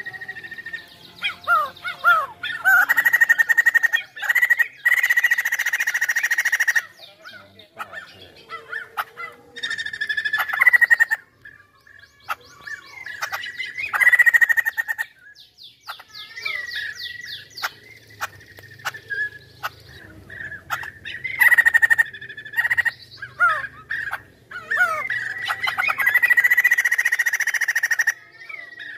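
White-crested laughingthrush (poksay Hongkong) singing loudly in long, varied bursts. Each burst mixes a held whistled note, quick downward-slurred notes and fast chattering runs, with short pauses between bursts.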